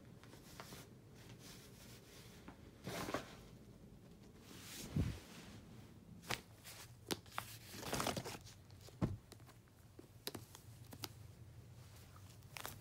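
Quiet rustling and handling noises: scattered light clicks and short crinkly rustles, with two soft thumps about five and nine seconds in.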